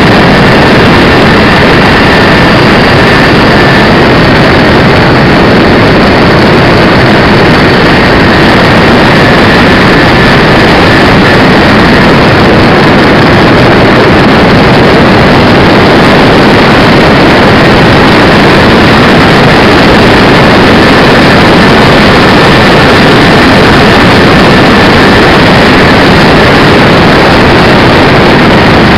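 Radio-controlled DC-6B scale model in flight, heard from a camera on its airframe: loud, steady motor and propeller noise mixed with rushing air, with a thin high whine held throughout.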